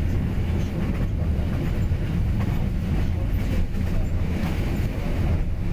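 Train running on the rails: a steady low rumble that doesn't let up.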